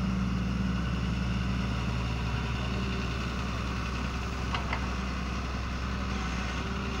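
Diesel engine of a Doosan Daewoo 140W wheeled excavator running steadily under load as the boom raises and swings a bucket of soil.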